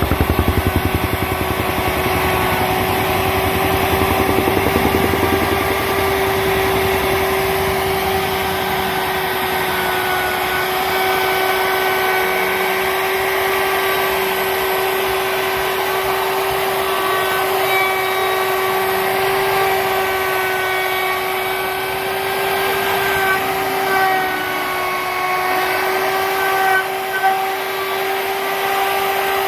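Woodworking router's motor running steadily with a high whine as it cuts a bead moulding into wood; the pitch wavers slightly under load in the second half.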